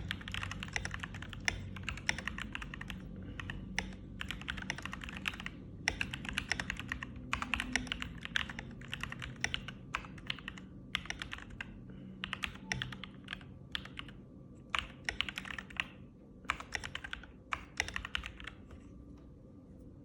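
Typing on an FL Esport MK870 mechanical keyboard with Jwick yellow linear switches, stock stabilizers and cherry-profile keycaps: quick runs of keystrokes in bursts with short pauses between them, stopping near the end.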